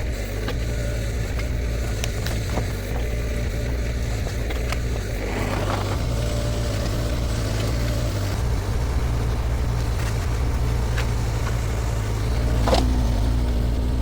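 Shantui STE35SR mini excavator's diesel engine running steadily under work, with scattered sharp knocks of demolition and a louder one near the end.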